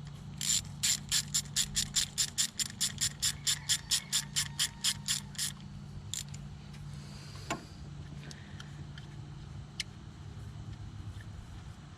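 A 10 mm ratchet wrench clicking rapidly, about four clicks a second for some five seconds, as it backs out an ignition coil's hold-down bolt. The clicking stops, followed by a few single clicks and a knock.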